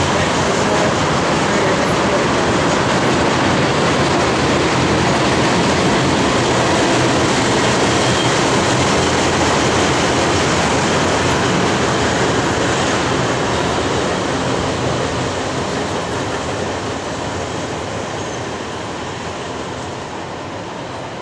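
Freight train of tank cars rolling past close by, a loud, steady rumble of wheels on rail that fades over the last several seconds as the end of the train goes by.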